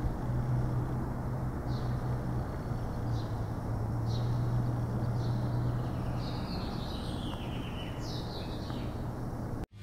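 Outdoor ambience: a steady low hum with a wash of background noise, and birds giving short, falling chirps now and then from a couple of seconds in until near the end.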